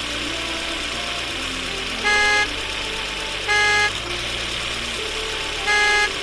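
Three short horn beeps, about half a second each, the second and third coming about a second and a half and two seconds apart. Under them runs a steady engine-like hum with low tones that shift in pitch every second or so.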